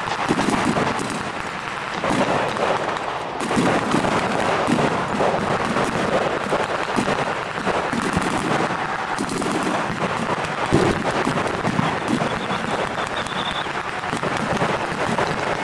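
Sustained small-arms fire with blank rounds, many rifles and guns shooting at once, so the shots crackle continuously and overlap with no pause.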